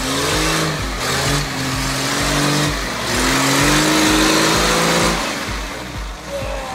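Lifted off-road 4x4 on big mud tyres driving through deep mud under hard throttle, the engine revving up, easing off about a second in and again near three seconds, then climbing to its loudest before backing off after about five seconds, with a rushing noise of tyres and spray. A steady beat of background music runs underneath.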